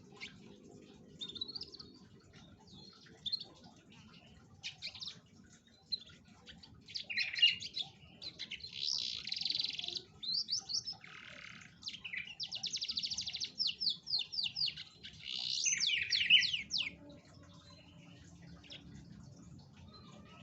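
Domestic canary singing: scattered chirps at first, then a loud run of chirps and fast even trills through the middle, including a rapid trill of about ten notes a second, dying away a few seconds before the end.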